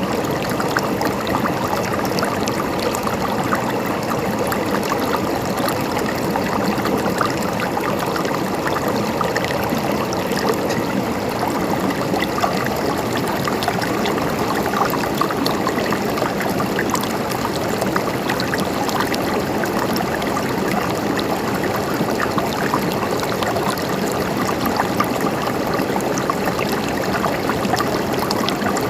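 River water flowing and gurgling over rocks, a steady rushing with fine splashing.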